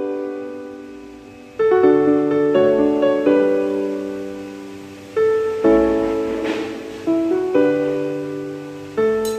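Slow, gentle background piano music: chords struck every second or so and left to ring and fade.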